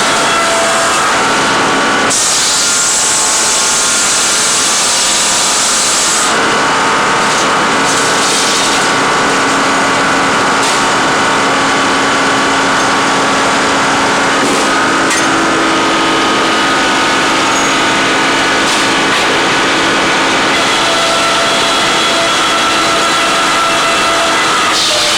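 Logging machinery running steadily while sawing wood: a constant engine-and-saw noise with held tones. The sound changes abruptly three times, near the 2, 6 and 14 second marks, as one machine gives way to another.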